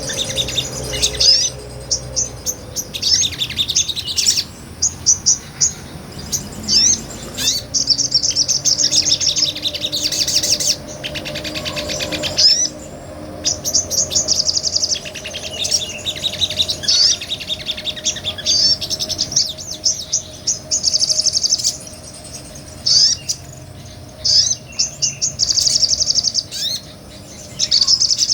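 Sogon, a small nectar-eating songbird, singing in its full, busy 'ngobra' style. It gives rapid high chirps and trills in repeated bursts of a second or two, with short pauses between them.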